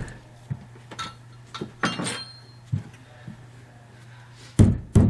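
A few light knocks and handling sounds, then, from about four and a half seconds in, a steady run of hammer blows, about two and a half a second, driving a carpet stair tool to tuck the carpet into the crease of a stair step.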